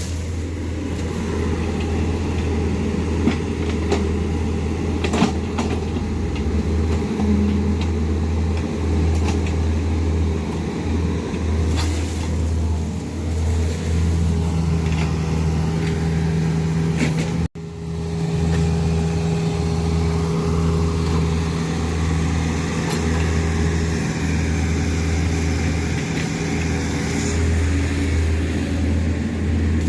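Excavator diesel engine running steadily with a constant low hum. The sound cuts out for an instant about halfway through.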